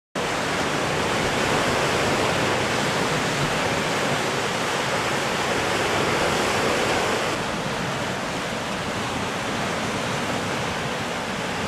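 Sea surf breaking and churning against a rocky lava shoreline, a steady rush of water noise that starts abruptly and drops a little about seven seconds in.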